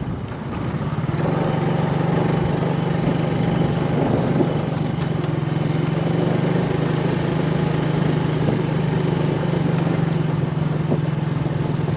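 Small motorcycle engine running at a steady pace while being ridden, a constant droning hum that settles in about a second in.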